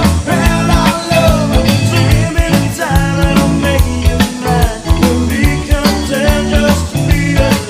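Rock-style background music with a steady beat.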